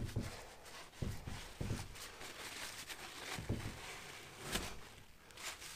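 Paper towel rubbing and rustling as it wipes excess silicone from around a rod holder on a plastic kayak deck, with several soft handling thuds.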